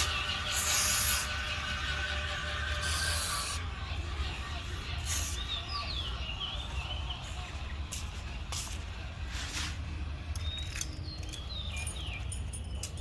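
WD-40 aerosol spray hissing in two short bursts, about half a second and three seconds in, lubricating an old squeaking autogate. Birds chirp later, over a low steady hum.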